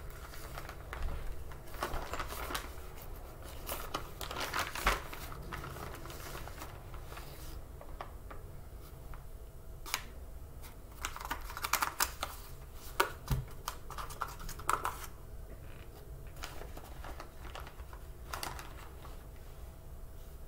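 Tapioca chunks being scooped from a paper carton with a wooden scoop and dropped into a plastic bag: irregular clicking, tapping and rustling, busiest in the first few seconds and again in the middle.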